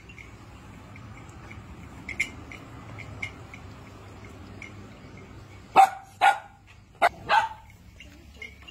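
A dog barking four times in quick succession, starting about six seconds in, over faint high chirping.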